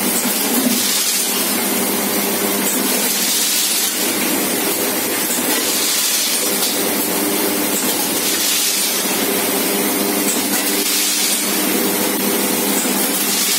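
Pasta pouch form-fill-seal packing machine running: a steady mechanical hum with a hiss that swells briefly about every two and a half seconds as the machine cycles.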